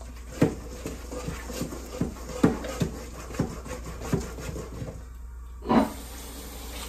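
Seasoned vegetables being mixed by hand in a stainless steel mixing bowl: irregular light knocks and rustles of the pieces against the metal, with one louder knock near the end.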